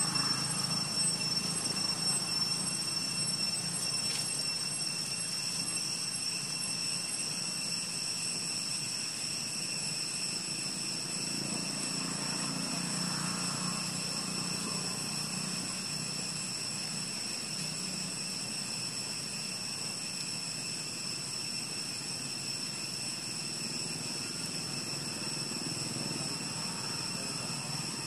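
Steady, high-pitched insect drone held on one unchanging tone, over a low, even rumble of outdoor background noise.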